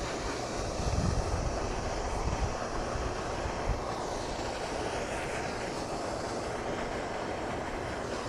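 An airplane passing overhead: a steady, rushing engine drone whose tone sweeps slowly in the middle of the passage. Low rumbling gusts of wind hit the microphone about a second in.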